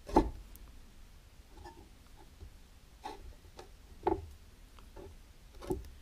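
Hands pressing and smearing a soft clay ball onto a clay mug handle to form a thumb rest: faint handling and rubbing with a few short knocks, the loudest just at the start.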